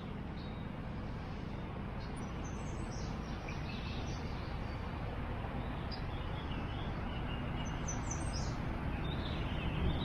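Birds chirping and singing in short scattered calls over a steady outdoor rumble and hiss.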